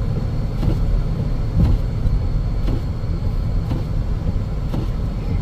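Car cabin road noise while driving: a steady low rumble of tyres and engine, with faint light ticks about once a second.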